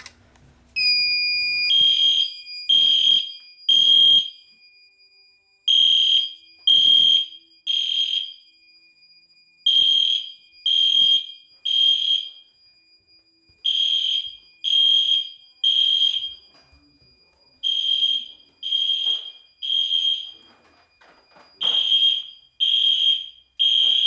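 Genesis fire alarm horns sounding the temporal-three evacuation pattern after a pull station has been pulled: three short blasts about a second apart, then a pause, repeated six times. A steady high tone runs underneath from just before the first blast.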